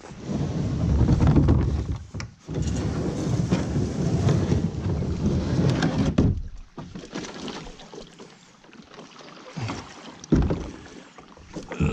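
Plastic sit-on-top kayak dragged across grass and over rocks, the hull scraping and rustling loudly for about six seconds. After that it goes quieter, with a few knocks as the kayak slides off the rocks into the water.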